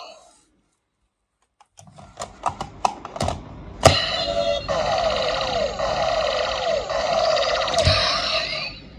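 Plastic clicks as Gaia Memories are pushed into the slots of a Kamen Rider W transformation belt toy, then a loud snap, then the belt's electronic standby sound plays, full of swooping synthesized tones, and stops just before the end.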